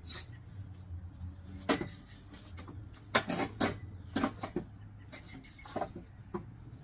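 A series of short knocks and clatters, single or in quick clusters, about every second, over a faint low hum.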